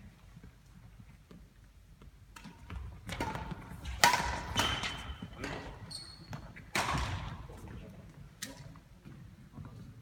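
Badminton rally: rackets striking the shuttlecock, with shoes squeaking and footsteps on the court floor. The loudest crack, about four seconds in, is a jumping smash, and another hard hit follows about three seconds later.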